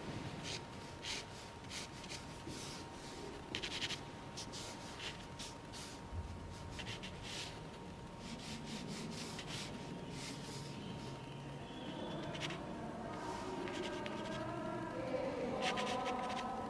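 Pencil sketching on fine-grain Moulin du Roi watercolour paper: short strokes in quick runs, the graphite rubbing across the paper's grain. In the last few seconds quiet voices come in behind it.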